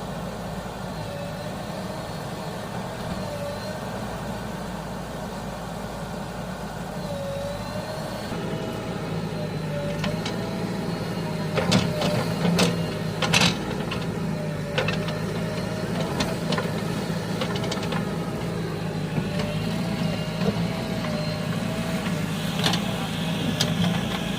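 Heavy diesel engine idling steadily, its note getting a little louder and fuller about a third of the way in, with a few sharp knocks around the middle.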